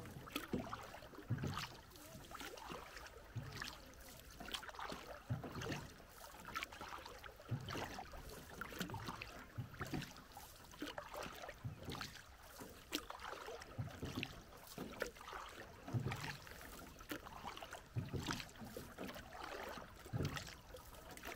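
Small rowboat being rowed, with a knock and splash of the oars about every two seconds and lighter sloshing and clatter between strokes.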